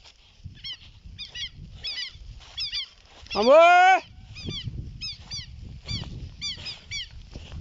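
A bird calls over and over in short, high, falling notes, mostly in twos and threes. About halfway through, a man gives one loud, drawn-out shout of "Vamos!" to drive cattle. A low rumble runs underneath.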